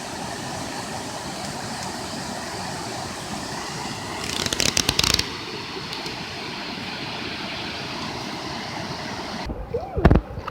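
Steady rushing of a small waterfall, with a second-long burst of loud rapid crackling about four seconds in. Near the end the rushing cuts off suddenly and a couple of sharp thumps follow.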